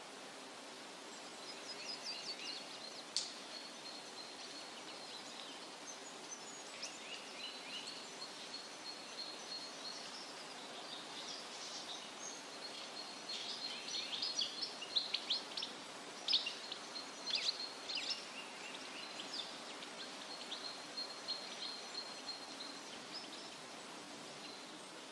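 Forest ambience: birds singing and chirping in short trills and calls over a steady background hiss, busiest a little past halfway.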